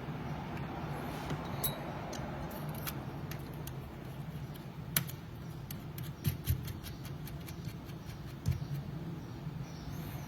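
Small hobby parts clicking and ticking as a tire truer's wheels, spacers and drives are handled and fitted together, several sharp clicks with a run of quicker ticks in the middle, over a steady low hum.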